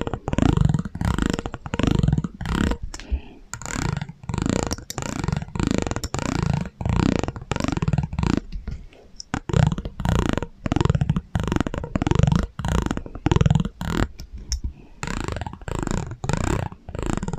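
ASMR trigger sounds put through a heavy echo effect: a run of short pulses, about two a second, each with a sliding, warbling pitch.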